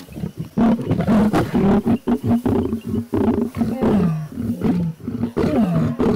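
Lions snarling and growling in a fight over a kill, the male lion asserting his dominance over a lioness who tried to feed. A rapid run of harsh snarls, several falling in pitch.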